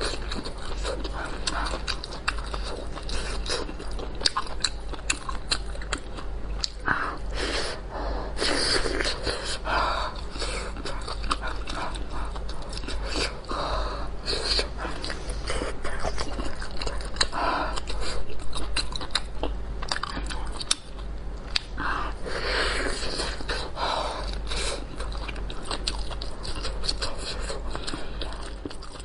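Close-miked eating: biting into and chewing a steamed meat bun filled with pork, pickled long beans and green chili, with continuous wet mouth clicks and smacking. A steady low hum runs underneath.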